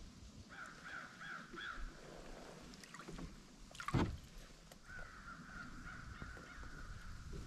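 A bass let go over the side of a kayak, with one splash about four seconds in. Around it come four quick high-pitched calls near the start and then a long, steady high note.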